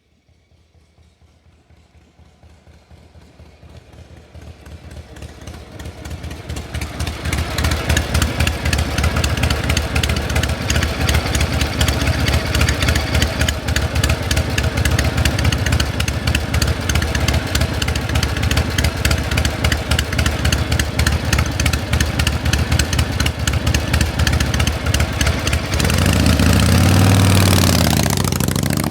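Metal gears running with a dense, rapid clatter, fading in over the first several seconds and then holding steady. Near the end a deeper sound rises and falls in pitch, like a gear shift.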